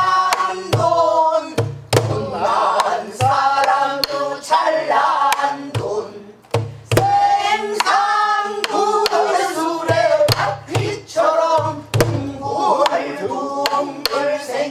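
A woman singing pansori in long, bending, wavering sung lines, keeping time on a buk barrel drum. The drum gives sharp knocks from the stick and short deep thumps from the drumhead at irregular moments under the voice.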